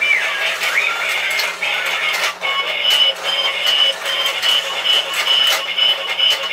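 Background music: a bright tune of short high notes repeating two or three times a second, with a steady beat.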